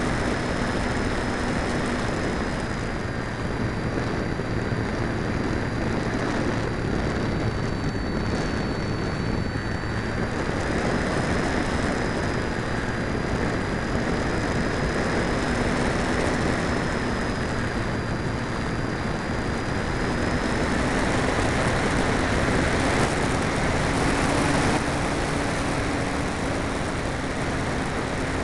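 Onboard audio from an RC Easy Glider model plane in flight: a steady rush of airflow over the airframe and microphone, with a faint steady drone and a thin high whine that drifts slightly in pitch.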